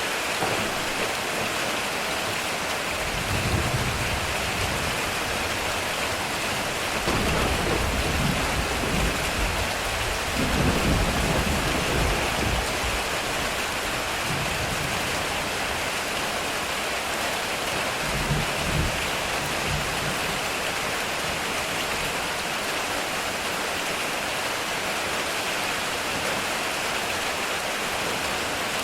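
Heavy rain drumming steadily on a metal roof, with low thunder rolling in three times: briefly about three seconds in, longest and loudest from about seven to thirteen seconds in, and once more around eighteen seconds in.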